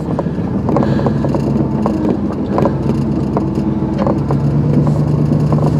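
Pickup truck engine running steadily, rising slightly in pitch about four and a half seconds in, with a few scattered knocks.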